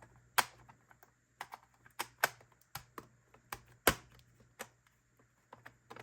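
End cap being worked onto the end of a Teke tube and lined up with its screw holes: a series of irregular sharp clicks and taps as the parts knock and seat together.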